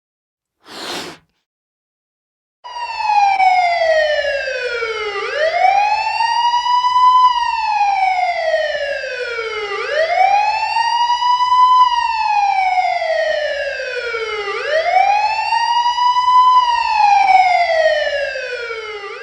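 A siren wailing in slow cycles: the pitch slides down over about two and a half seconds, then swoops back up, four times over. A short whooshing hiss comes about a second in, before the siren starts.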